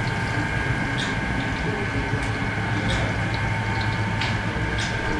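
Steady mechanical hum with a few fixed whining tones, over which short light clicks come irregularly about once or twice a second.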